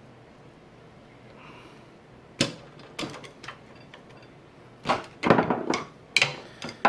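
Metal clanks and knocks from a truck axle hub being worked apart by hand. One sharp knock comes about two and a half seconds in, then a few light clicks, then a cluster of louder clanks and scrapes near the end, as a tight-fitting hub part binds.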